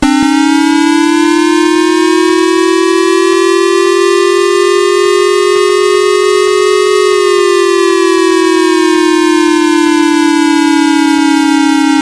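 Electronic civil-defense-style siren wail sounding as the warning tone of a mock Emergency Alert System broadcast. It starts suddenly, rises slowly in pitch for about seven seconds, then slowly falls.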